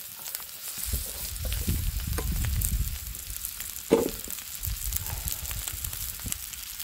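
Chopped cabbage and vegetables sizzling on a hot cast-iron cauldron lid, a steady frying hiss with small crackles. A low rumble runs under it for a couple of seconds about a second in.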